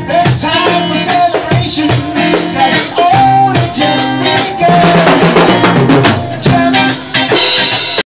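Rock band jamming loud: drum kit and amplified electric guitar, cutting off abruptly near the end.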